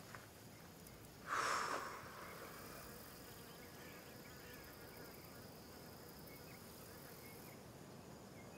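Faint outdoor field ambience of insects buzzing and chirping steadily. A brief louder rush of noise comes about a second and a half in.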